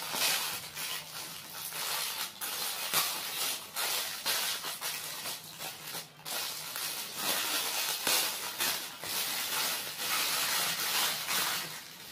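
Thin clear plastic packaging crinkling and crackling as it is torn open and pulled off a plastic toy, with many short sharp crackles.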